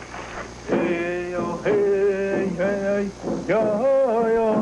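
A chanting voice singing a wailing melody of long held notes that slide from one pitch to the next, beginning about a second in.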